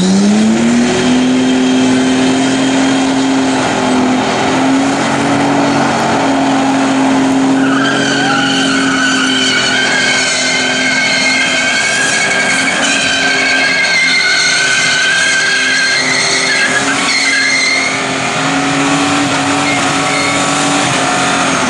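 Ford AU Falcon doing a burnout. The engine revs climb in the first second, then hold high and steady while the rear tyres spin. A steady high tyre squeal comes in about eight seconds in and lasts until about sixteen seconds.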